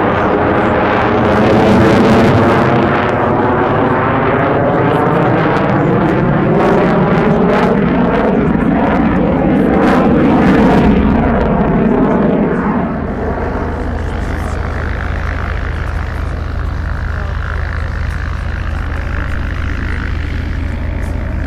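Loud jet noise from a Belgian F-16 fighter's turbofan engine flying a display pass, with a sweeping, phasing quality as the aircraft moves across the sky. About 13 seconds in, the noise drops off to a quieter, steadier rumble as the jet draws away.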